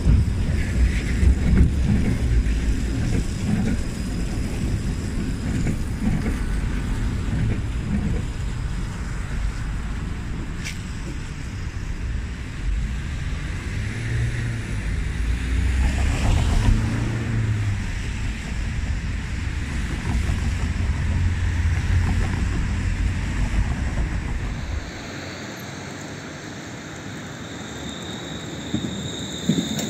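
An orange-red two-car tram rolls past over the rails, heavily mixed with wind rumbling on the microphone. About 25 s in, the sound cuts to a quieter street scene with a faint, steady high tone.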